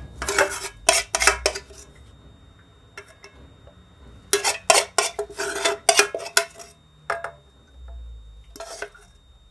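Metal spoon scraping and clinking against the inside of a metal cooking pot while scooping up oil and herbs. It comes in two bursts of quick scrapes and knocks, one of about a second and a half at the start and one of about two seconds in the middle, with a few single clinks between and near the end.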